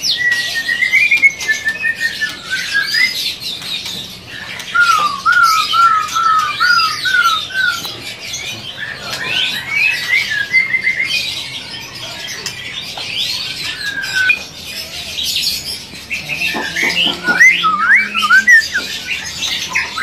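Many caged songbirds singing and calling over one another: whistled notes, chirps and squawks. Between about five and eight seconds in, one bird gives a run of about eight quick rising whistles.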